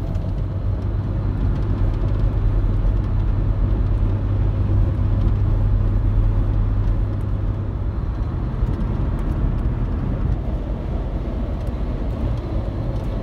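Steady road noise inside a moving car's cabin: a constant low rumble of tyres and engine at highway speed.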